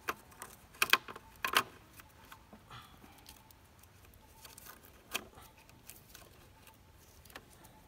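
Scattered sharp clicks and taps of hand-tool work on a broken-down motorbike during a makeshift roadside repair. The loudest cluster comes about a second in, with another tap about five seconds in and fainter ticks between.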